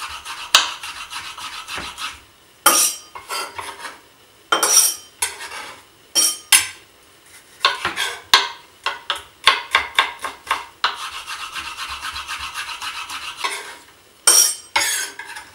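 Chef's knife cutting a peeled red bell pepper into small sticks on a wooden cutting board: sharp knocks of the blade on the board, in quick runs separated by pauses.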